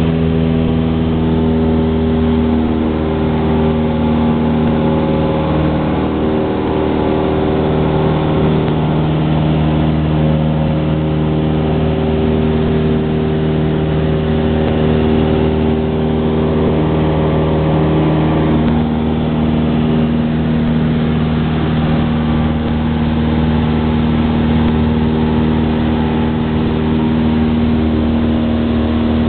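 Cessna 172's piston engine and propeller droning steadily, heard from inside the cabin in flight.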